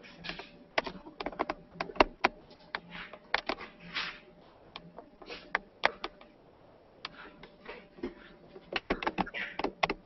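Handling noise close to the microphone: irregular clicks, taps and knocks with short rustling swishes as objects on a work table are moved about.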